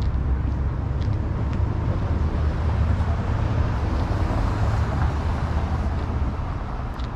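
City street traffic: a steady low engine rumble, with tyre and engine noise swelling in the middle as a vehicle passes, then easing off.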